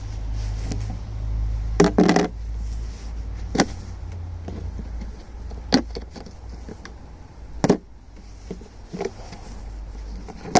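Sharp metallic knocks and clanks of tools working on a stuck oil filter. There is a cluster about two seconds in and then single knocks every couple of seconds, over a low steady rumble.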